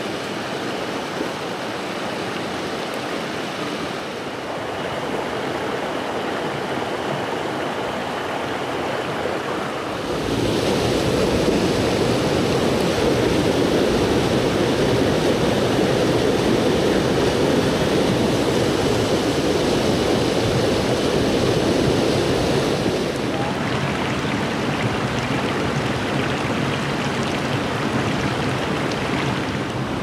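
Mountain stream rushing over boulders and cobbles, a steady wash of water. About ten seconds in it grows sharply louder and fuller, as if at closer rapids, and it eases back somewhat near the three-quarter mark.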